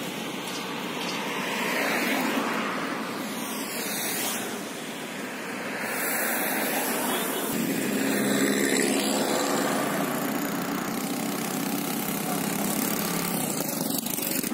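Road traffic going by: motorbikes and cars passing one after another, each swelling and fading, over a steady low engine hum.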